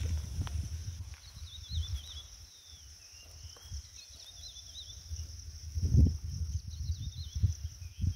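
Insects buzzing steadily in a high, even drone, while a bird repeats a short warbling phrase about every two to three seconds. An uneven low rumble on the microphone comes and goes under them, with a loud bump about six seconds in.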